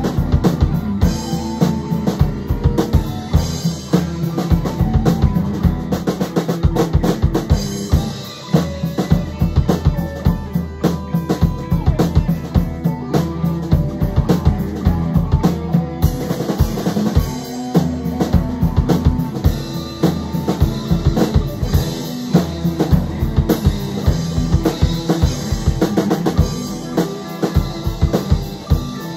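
Full rock band playing a song: two electric guitars over a drum kit keeping a steady beat with bass drum and snare, with keys.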